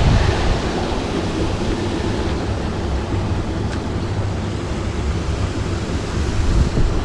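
Wind buffeting the microphone: a steady low rumble with a hiss above it, strongest at the very start.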